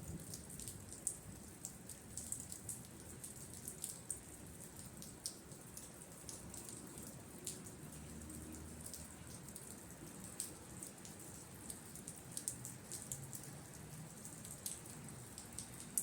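Faint thunderstorm rain: scattered raindrops and drips ticking at an irregular pace over a soft, steady rain hiss.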